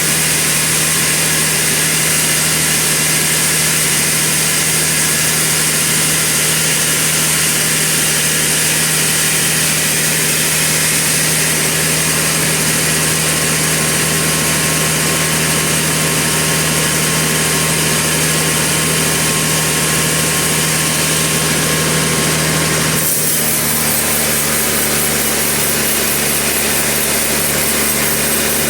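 Sawmill machinery running steadily at a constant pitch. About 23 seconds in, the sound changes abruptly and then runs on steadily at a slightly different pitch.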